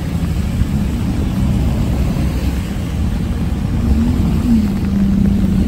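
Low rumble of car engines running, with a steady engine hum that wavers slightly in pitch in the second half.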